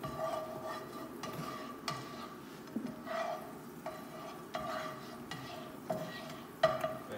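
A spatula scraping and knocking around a frying pan on the stove, spreading melted vegan butter, over a light sizzle. Each stroke makes the pan ring briefly, and the loudest knock comes near the end.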